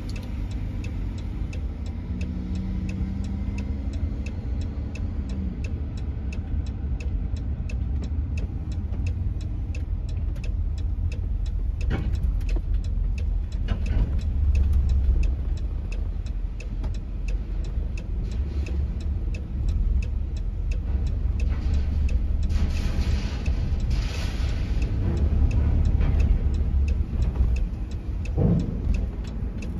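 Steady low engine and road rumble inside a vehicle creeping onto a ferry, with the hazard-light flasher clicking evenly the whole time. A couple of louder knocks near the middle as the tyres cross the steel loading ramp.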